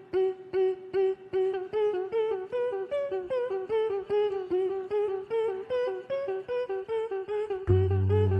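Beatboxing group performing with their voices: short hummed staccato notes, about three a second, with the tune climbing in the middle. Near the end a deep steady bass tone comes in underneath.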